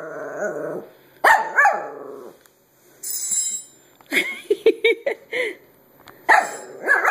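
Small puppy barking and yapping in short separate bursts, with a quick run of sharp yaps about four to five seconds in.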